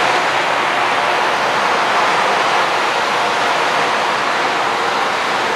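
Airbus A320's twin jet engines running at taxi power: a steady rushing hiss with a faint, steady whine on top.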